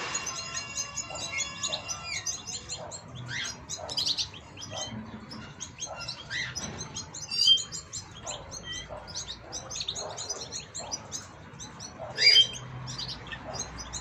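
Several caged songbirds chirping and twittering in quick, continuous high notes, with a louder call about halfway through and again near the end.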